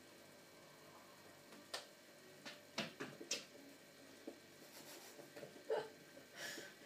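A few faint, short knocks and scuffs of cats' paws and claws landing and scrabbling on carpet and wall as they pounce at a laser dot, with a brief scratchy scrape near the end.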